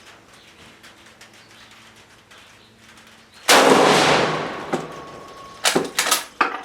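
A single rifle shot from a Spanish FR7 bolt-action rifle, fired about halfway through, with a long fading echo; a few sharp clicks follow near the end.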